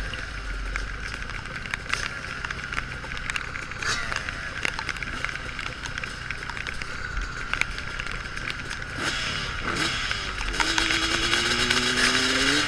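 Suzuki RM-Z450 four-stroke single-cylinder motocross engine, heard from the rider's own helmet camera with wind rush on the microphone. The revs rise and fall through the gears, and from about ten seconds in the engine note climbs steadily under throttle.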